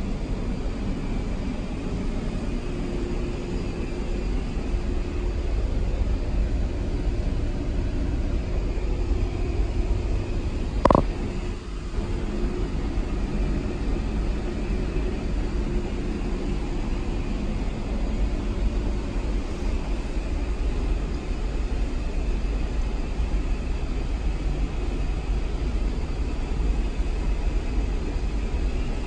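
Steady low rumble of a train at the station platform, with one short, sharp higher sound about eleven seconds in.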